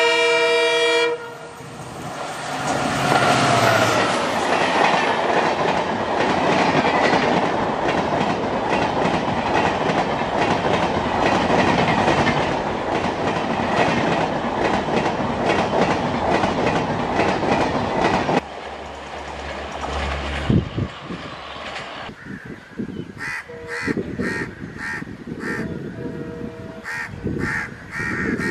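WDP-4D diesel locomotive's horn blast, ending about a second in, then the locomotive and its coaches passing at speed: a loud steady rumble with the rhythmic clickety-clack of wheels over rail joints, which drops away about 18 seconds in. Near the end, crows cawing repeatedly.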